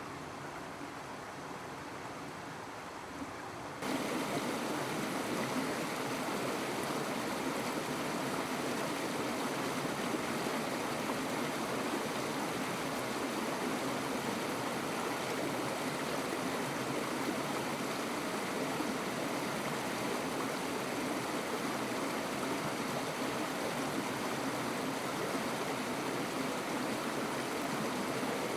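Steady rushing noise like running water, which suddenly turns louder and brighter about four seconds in.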